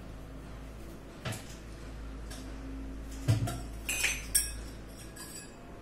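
A few scattered clinks and knocks of steel kitchenware and utensils, the sharpest a little past three seconds and twice around four seconds, over a low steady hum.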